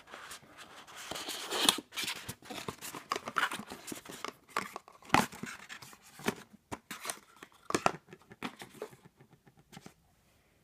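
Small cardboard advent-calendar box being pulled open and handled: a busy run of scraping, rustling and light clicks of card against card, stopping near the end.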